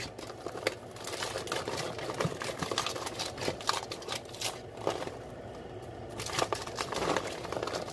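Sugar-coated popcorn being stirred by hand in a disposable aluminium foil baking pan: a dense run of small crackles and rustles as the kernels are turned against the foil, easing off for about a second midway.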